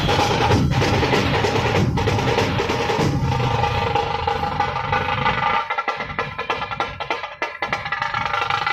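Dhol-tasha troupe drumming: many large two-headed dhol barrel drums beaten together, with the sharp stick rolls of tasha drums. About five and a half seconds in, the deep drumbeats drop out and lighter, sparser strokes carry on.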